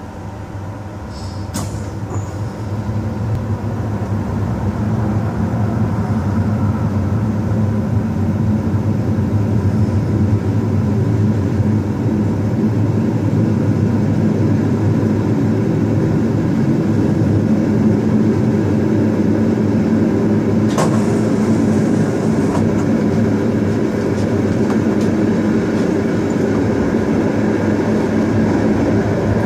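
Electric-hauled Intercity passenger train pulling out of a station, heard on board: the low rumble of wheels and running gear builds over the first eight seconds or so as it gathers speed, then runs steady. A short rush of hiss comes about 21 seconds in.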